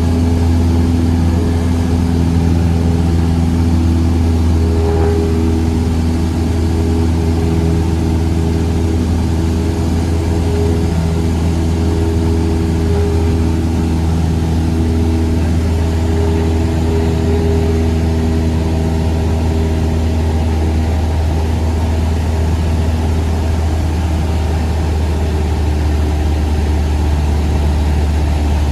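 Cessna 172's piston engine and propeller droning steadily, with a strong low hum and slight shifts in pitch now and then.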